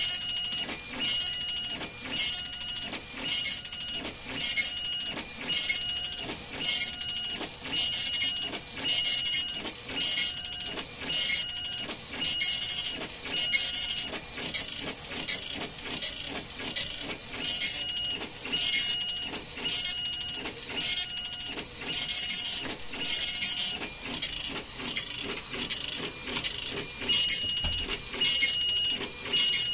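Compuprint 3056 dot matrix printer printing its settings page. The print head buzzes across line after line in a quick, steady rhythm of passes, a little under two a second, with a short whine between passes.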